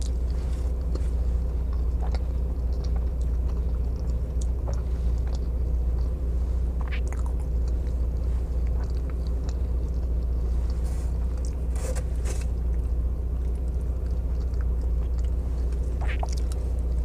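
A person chewing mouthfuls of a burger close to a clip-on mic, with small scattered mouth clicks, over a steady low hum.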